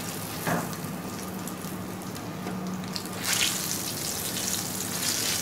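Egg-and-flour coated chicken drumstick sizzling in shallow hot oil in an aluminium kadai, the sizzle swelling about three seconds in as it is pressed with a steel spatula, with a brief knock about half a second in.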